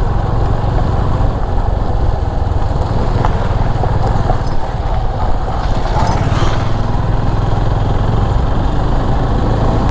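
Motorcycle running steadily while being ridden along the road, a continuous low rumble.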